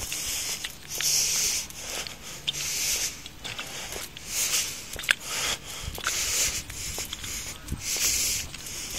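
A person breathing close to the microphone while walking, a breath about every second to second and a half.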